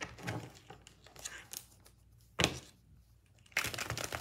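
A deck of tarot cards being shuffled by hand: short rustles and flicks of the cards, a sharp snap about halfway, and a riffle of the cards near the end.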